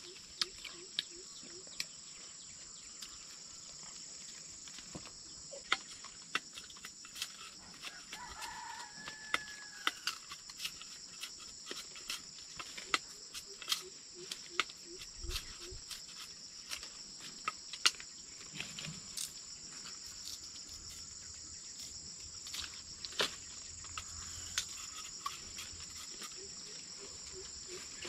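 A steady, high-pitched chorus of insects, with frequent sharp clicks and snaps scattered through it and chickens clucking faintly now and then.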